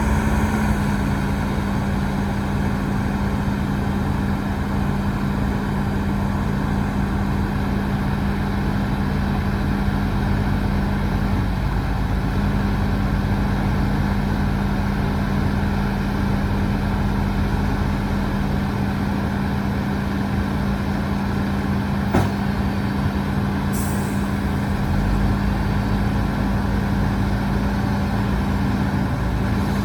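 Heavy diesel engine running steadily at a constant speed, with a sharp click about 22 seconds in and a short hiss a couple of seconds later.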